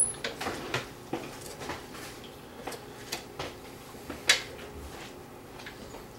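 Kitchen utensils and dishes clinking and knocking as they are handled: scattered light taps, with one sharper knock a little after four seconds in.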